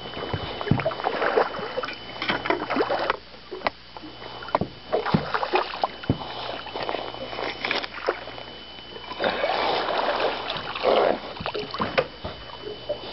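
Water splashing and irregular knocks and rattles against a fishing boat as a big walleye is netted and brought aboard.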